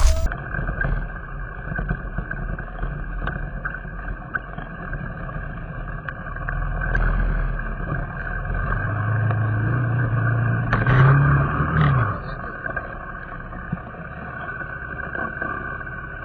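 Motorcycle engine running under way, its revs climbing between about nine and twelve seconds in, then dropping off sharply.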